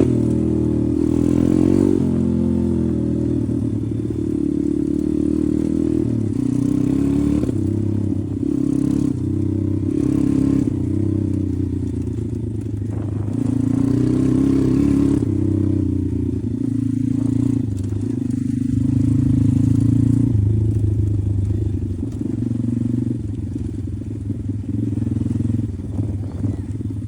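Pit bike engine running while riding, its speed rising and falling in steps as the throttle opens and closes and gears change. It revs up at the very start.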